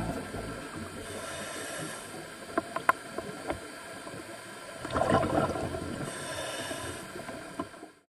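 Underwater sound of a scuba dive: a steady wash with a few sharp clicks, then a louder burst of a diver's exhaled bubbles about five seconds in, fading out just before the end.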